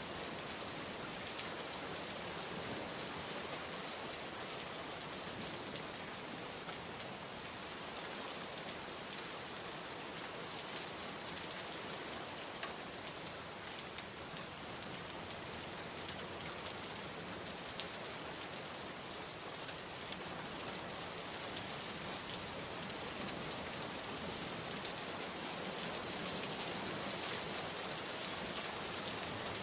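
Steady rain falling, an even hiss of drops with a few sharper individual drop ticks.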